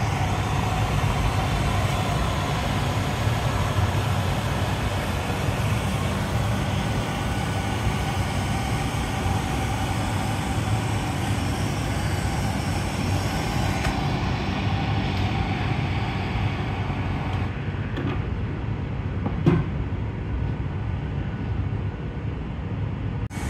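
A handheld gas torch hisses steadily on the glass over the constant low roar of the glassblowing shop's glory hole burner. The hiss thins out about 14 seconds in and again a few seconds later, and one sharp clink sounds near the end.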